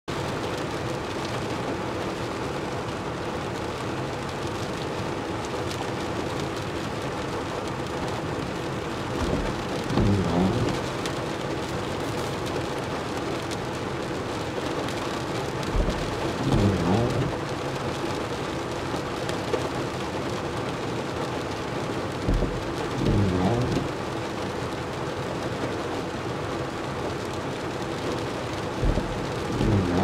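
Steady rain on a car's windshield and roof, heard from inside the car. The windshield wipers, on an intermittent setting, sweep across the glass four times, about every six and a half seconds, each pass with a low thump and a brief whine.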